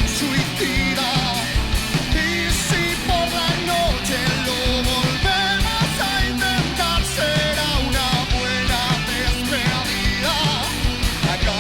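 Rock music: a band with fast, steady drums and electric guitars, a melodic line bending up and down over it.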